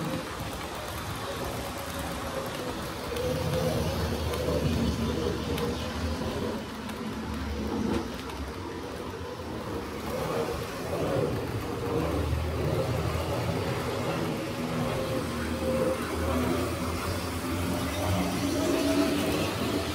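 Tri-ang Hornby 00 scale model trains running on the layout, among them a Bo-Bo electric locomotive hauling illuminated coaches: small electric motors whine, with the pitch wavering, over a rumble of wheels on the track.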